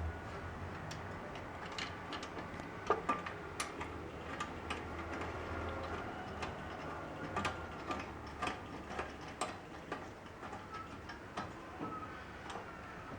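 Irregular small metallic clicks and taps, a few a second, some with a brief ring, as nuts are turned by hand onto the bolts joining the two parts of a sanitizer stand.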